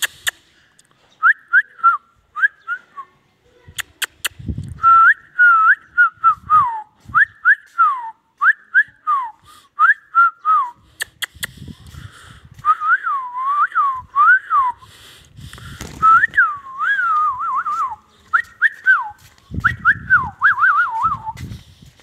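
Whistling: runs of short, clear whistled notes, each sweeping up and then down, with a quick warbling trill near the end. A few clicks and low rumbles fall between them.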